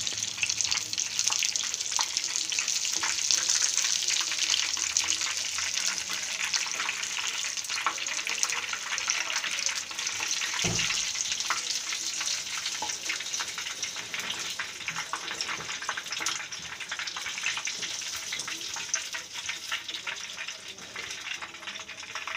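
Bread rolls deep-frying in hot refined oil: a steady sizzle full of small crackles, dying down near the end as the rolls are lifted out. A single dull knock sounds about halfway through.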